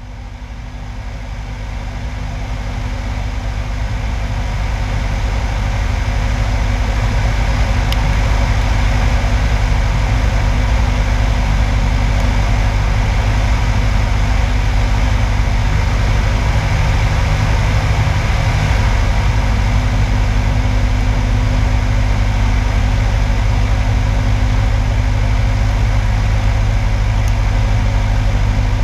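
Engine and propeller drone of a light single-engine high-wing airplane in flight: a steady low drone that fades in over the first few seconds and then holds level.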